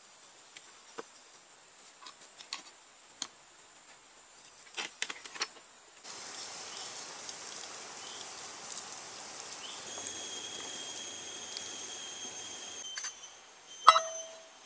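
A few light wooden taps and knocks, then a wood fire crackling under a pot, with steady insect calls coming in partway through. Near the end a metal cup gives a single sharp, ringing clink.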